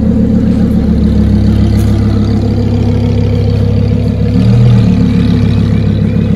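Lamborghini supercar engines running steadily at low revs, with a brief rise in pitch about four and a half seconds in.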